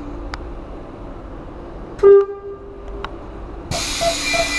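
Passenger door signal of a Euskotren UT200 train, heard from inside the car. About two seconds in there is one loud, short, ringing tone. Near the end a hiss starts with a beep repeating about three times a second.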